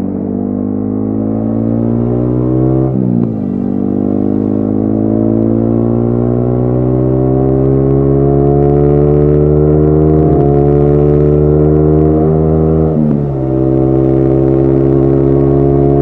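Yamaha XSR155 single-cylinder engine through a modified aftermarket exhaust, accelerating on the road. The exhaust note climbs steadily in pitch and drops at gear changes about three, ten and thirteen seconds in.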